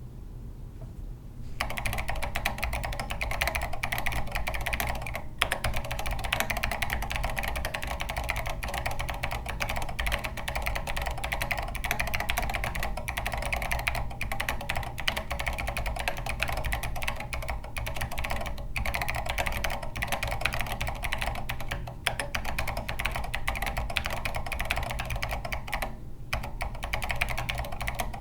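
Fast continuous typing on a Hyper 7 R4 mechanical keyboard with Zeal Clickies clicky switches and SA keycaps, starting about a second and a half in with a few brief pauses. The case is built without its foam, and the builder finds it pingy.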